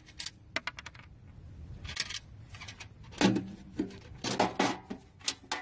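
Irregular sharp clicks and knocks of junk being handled in a trash pile, with a hard white plastic tray lifted and moved about. The loudest knocks come about two and three seconds in.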